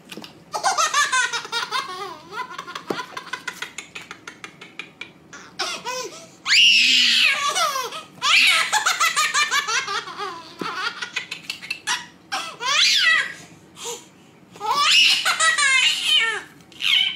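Baby belly-laughing in repeated fits of rapid, high-pitched giggles with short pauses between, including a long rising squeal of laughter about six seconds in.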